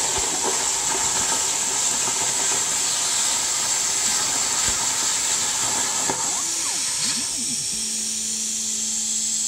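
CNC plasma cutter cutting steel plate, with the steady hiss of the arc and air. About seven seconds in the arc goes out and the hiss drops. The gantry's motors then whine briefly, rising and falling in pitch as the torch moves, and a steady hum sets in.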